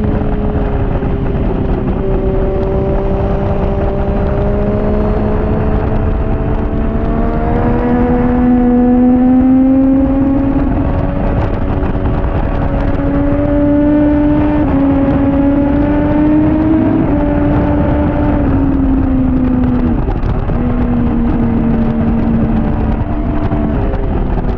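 2014 Triumph Daytona 675R's three-cylinder engine running hard at high revs, its pitch climbing slowly and dipping sharply a few times in the second half, over a steady rush of wind noise.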